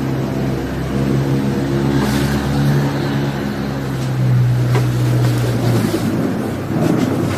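A low, steady droning hum with a few overtones, over a rushing, wind-like noise: the kind of unexplained 'strange sound in the sky' that residents have recorded. The hum holds for about five seconds and fades out near the end.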